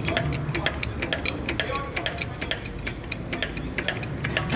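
Rapid, irregular metallic clicks and taps, several a second, as a new car wheel bearing is worked into place in the hub. A low, steady hum runs underneath.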